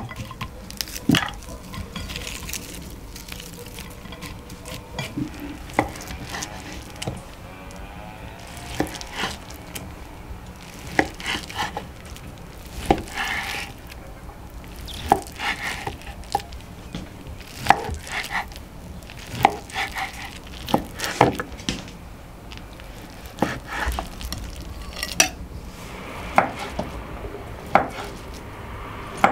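Kitchen knife cutting on a wooden cutting board: slicing homemade bread, with irregular knocks of the blade against the board and short scraping strokes every second or so.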